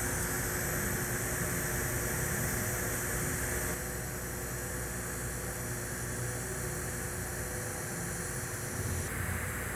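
TIG welding arc at about 95 amps laying the root pass on carbon steel pipe: a steady hiss with a low hum. It eases slightly about four seconds in and shifts again near the end.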